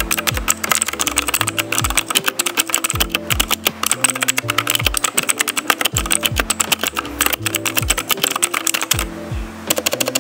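Machenike K500 mechanical keyboard with clicky blue switches being typed on: a fast, continuous stream of sharp keystroke clicks that pauses briefly near the end. Background music with a bass beat plays underneath.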